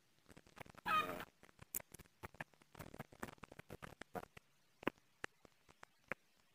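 Footsteps scuffing and clicking irregularly on a steep concrete footpath, with a brief pitched call about a second in.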